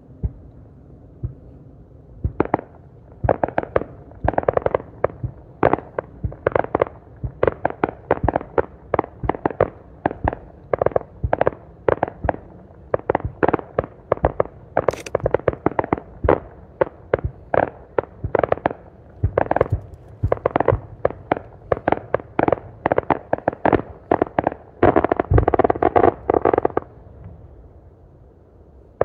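Aerial fireworks shells bursting in a rapid barrage: a couple of single bangs, then a long string of booming bangs two or three a second, thickest just before they stop near the end.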